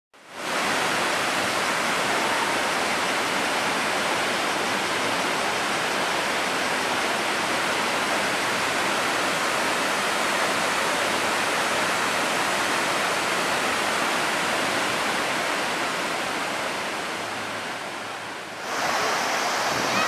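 Jion Falls pouring into its plunge pool: a steady, full rushing of falling water. It eases slightly near the end, then gives way abruptly to the rush of another, wider waterfall.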